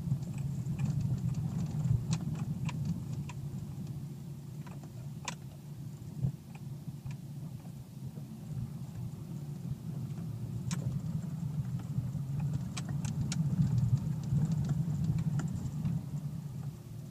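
Dacia Duster dCi 4x4's diesel engine running steadily at low revs, heard from inside the cabin while it crawls over a rough stony track, with scattered sharp clicks and rattles.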